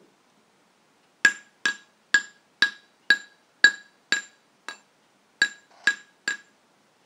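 A hammer striking a steel-tube frame eleven times, about two blows a second with a short pause past the middle; each blow rings briefly with a clear metallic tone.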